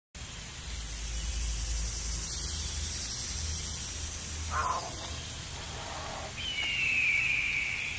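Underwater ambience picked up by a diving camera in its housing: a steady hiss over a low rumble. A short sweep comes about four and a half seconds in, and a high drawn-out tone that slowly falls starts about six and a half seconds in.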